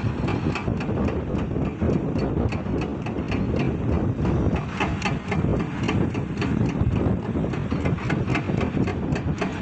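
Heavy diesel earthmoving machinery running, a steady low rumble with frequent irregular knocks and clatter.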